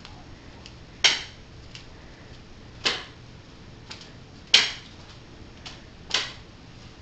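Slow footsteps on a hard floor: four sharp clicks about a second and a half apart, with fainter taps between them.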